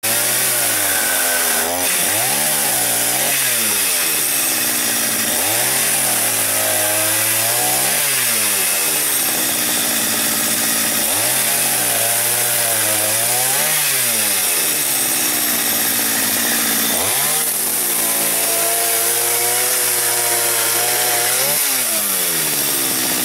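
Stihl two-stroke chainsaw running hard while cutting a log, its engine pitch sagging and recovering several times as the chain bites into the wood and clears it.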